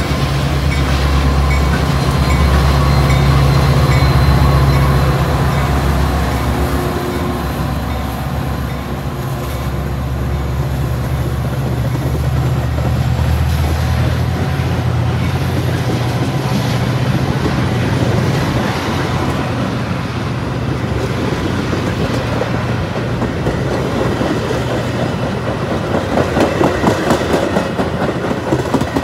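Two Metra EMD F40PH-3 diesel locomotives passing close by, their engines giving a steady low drone that fades over the first several seconds. Then the bilevel commuter coaches roll past, their wheels clacking rhythmically over the rail joints, most distinctly near the end.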